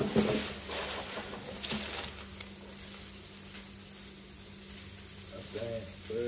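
Tissue paper rustling and a cardboard shoe box being handled, with a few knocks, loudest in the first two seconds, then quieter rustling.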